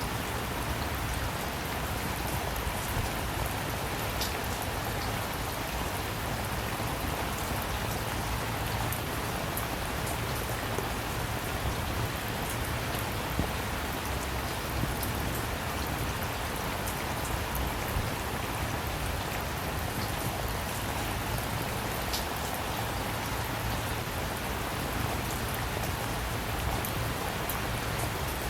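Steady rain falling on a surface, with many separate drops pattering over the even hiss.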